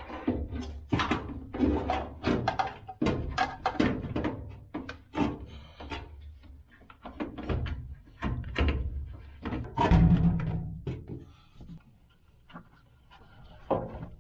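Irregular knocks, bumps and scraping as a washer drain pump assembly is handled and worked into place inside the washing machine's cabinet, with a quieter stretch near the end.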